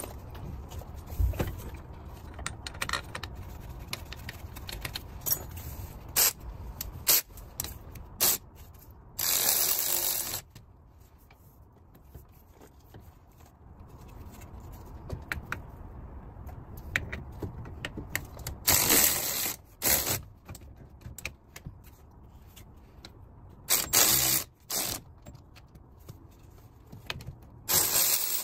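A hand ratchet wrench tightening the bolts of a new wheel bearing hub, in four fast ratcheting runs of about a second each, with metal tools clinking and clicking between them.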